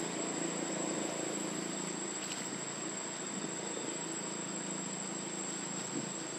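Steady, high-pitched drone of insects with a low hum underneath.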